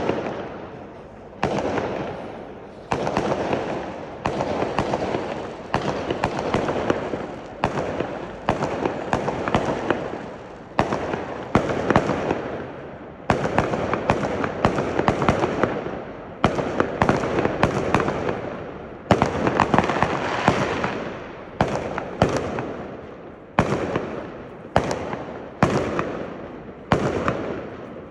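Fireworks display: aerial shells bursting one after another, roughly one every second, each sharp bang fading away over the following second.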